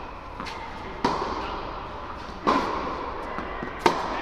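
Tennis ball struck by rackets and bouncing during a rally on an indoor hard court: three sharp pops about a second and a half apart, each ringing on in the echo of the large hall.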